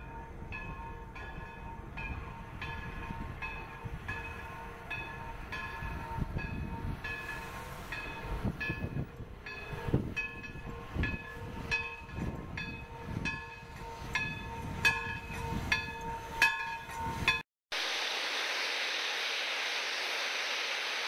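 East Broad Top narrow-gauge steam locomotive #16's bell ringing steadily, about two strokes a second, as the engine moves with its train. From about eight seconds in, its exhaust chuffs join at roughly one a second. After a brief dropout near the end comes a steady hiss.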